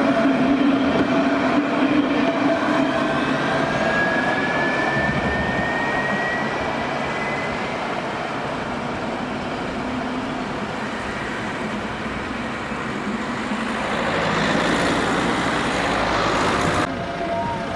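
Alstom Citadis electric tram passing close and pulling away, its traction motors whining, with one whine slowly rising in pitch over several seconds. Near the end a car drives by with a building rush of tyre and engine noise that cuts off suddenly.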